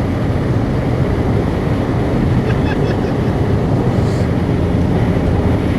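BMW Z3's 3.0-litre M54 straight-six running as the car drives along, heard from inside the car with steady road and wind noise.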